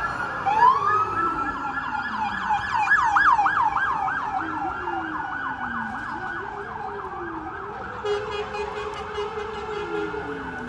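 Fire apparatus electronic siren rising into a wail, then switching to a fast yelp of about three cycles a second, with a second, lower siren slowly rising and falling underneath. A horn sounds about eight seconds in, and the sirens fade slowly as the rigs move away.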